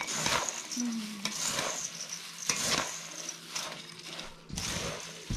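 Steel spoon stirring puffed rice (muri) mixed with chopped vegetables and sauce in a stainless steel bowl: irregular scrapes and clinks of spoon against bowl, with the rustle of the dry puffed rice.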